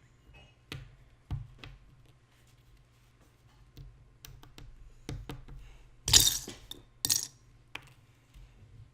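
Small plastic Lego bricks clicking and tapping as they are handled and pressed together, with two louder clattering rattles of loose pieces about six and seven seconds in.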